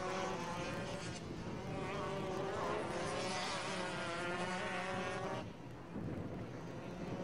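Several 125 cc two-stroke racing kart engines (shifter and Rotax DD2 karts) buzzing at high revs on track, their pitch rising and falling as they brake and accelerate through the corners. The sound dips briefly a little over five seconds in.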